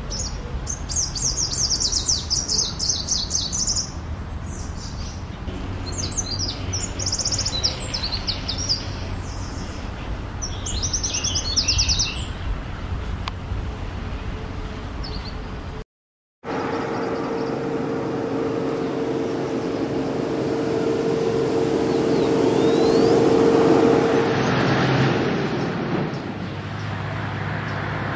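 Greenish warbler singing: several short, fast, high-pitched trilling phrases a couple of seconds apart. After a cut partway through, a steady motor hum takes over, swelling and easing off, with no song.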